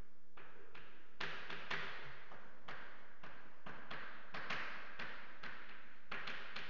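Irregular light taps and knocks, about two a second, each echoing briefly in a large hall.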